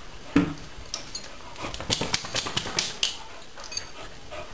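Dogs' claws clicking and skittering on a tiled floor as two dogs scuffle, a quick run of sharp clicks in the middle. A short dog vocalization comes about half a second in.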